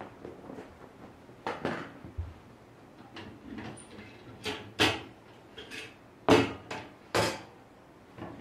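Things being handled and set down in a home kitchen: a string of scattered knocks and clacks, the loudest of them in the second half.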